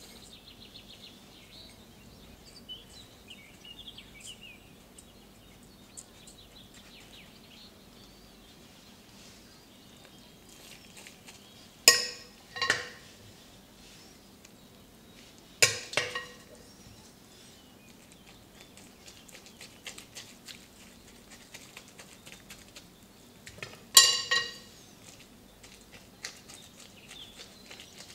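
Kitchenware being handled: three sharp, ringing clinks of dishes or utensils knocking together, each followed by a smaller knock, with lighter clicks and taps between them. Faint bird chirping can be heard in the background near the start.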